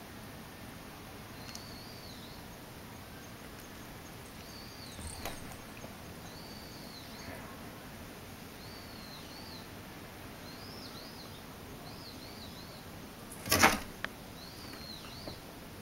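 A bird calling over and over, a short high chirp that rises and falls, about once every second or two, over a steady low hiss. Near the end comes one short loud knock, the loudest sound, as the kitten scrabbles up the wooden bed frame.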